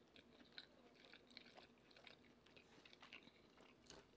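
Very faint chewing: a few soft, scattered mouth clicks over near silence.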